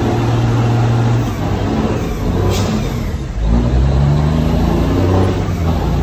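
Semi truck's diesel engine revved hard for a burnout, heard from inside the cab. It holds high revs at first, sags and wavers, then climbs again about halfway through.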